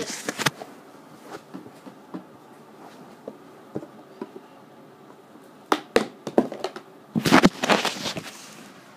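Handling noise: scattered light knocks and clicks, two sharper clicks about six seconds in, then a loud rustling scrape lasting about a second.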